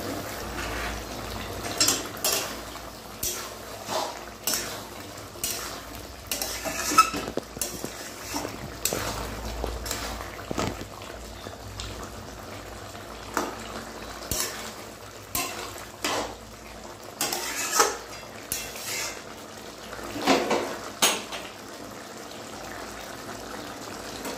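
A spatula stirring thick simmering curry in a metal kadai, scraping and clinking against the pan in short irregular strokes about once a second.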